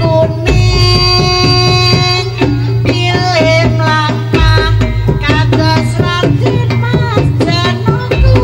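Javanese jaranan gamelan music: kendang hand drums beating under a held, wavering melody line, with a steady low drone beneath.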